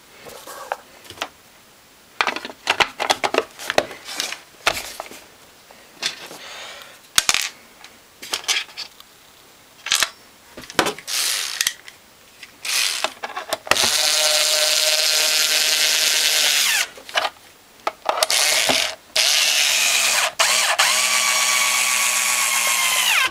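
Clicks and rattles of plastic mixer parts being handled and fitted, then a power screwdriver running in three runs, two longer and one short, driving the screws into a hand mixer's plastic casing; the last run slows and drops in pitch as it stops.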